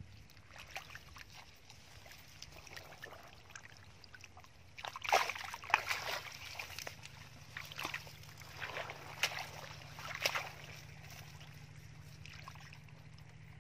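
Hands groping in shallow muddy water, with irregular splashes and sloshing that are loudest and most frequent from about five to ten seconds in. A steady low hum runs underneath.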